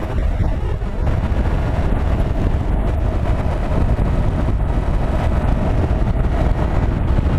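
Yamaha FZ-07 motorcycle's parallel-twin engine running at a steady cruising speed, mixed with a low rumble of wind buffeting the bike-mounted camera's microphone. There is no change in engine pitch.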